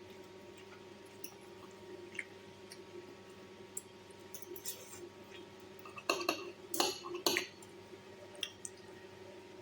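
Light clicks and clinks of small hard objects being handled, with a brief run of louder clatters a little past halfway, over a steady hum.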